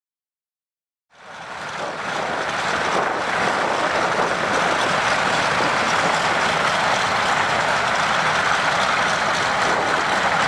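Douglas C-47/DC-3 aircraft with piston radial engines and propellers running as they taxi, a steady drone that comes in about a second in and holds level.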